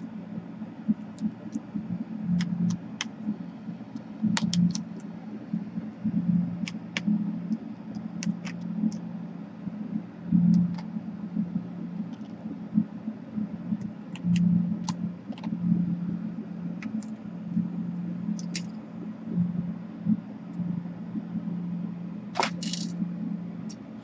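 Small screws being undone from a laptop's plastic bottom case: scattered light clicks and ticks of the screwdriver and loose screws, over a steady low hum.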